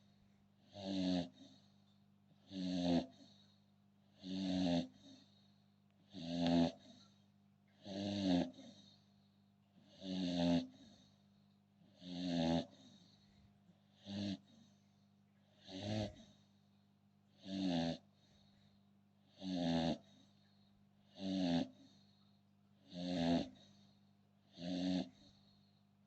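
American Bully dog snoring in its sleep: a steady, regular rasping snore every two seconds or so.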